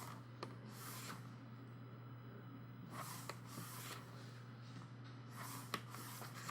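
Soft paper swishes and light handling clicks as the pages of a glossy photo book are turned, a few times, over a faint steady hum.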